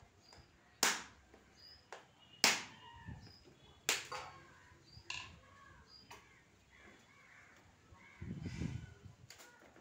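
The hard shell of a wood apple being knocked to crack it open: three sharp knocks about a second and a half apart, with a few lighter taps after them. Small birds chirp throughout, and there is a brief rustle near the end.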